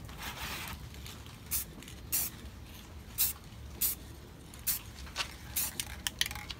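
Aerosol can of Rust-Oleum 2X clear gloss spraying in a series of short hissing bursts, the first a little longer than the rest, as light sealing coats are applied.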